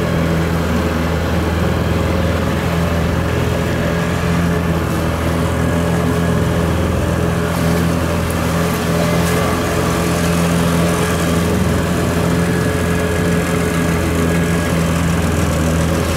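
A boat engine idling steadily: an even, unchanging low hum with no revving.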